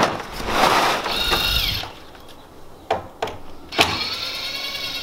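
Cordless drill's motor whining steadily as it backs screws out of a door frame, starting just under four seconds in after a sharp click; a shorter whine and some handling clatter come earlier.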